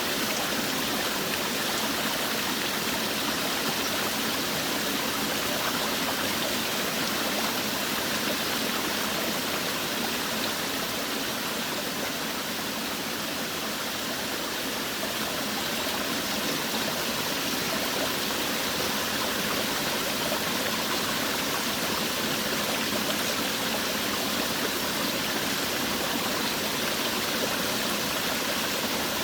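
Forest waterfall: water falling and rushing in a steady, even splash and hiss.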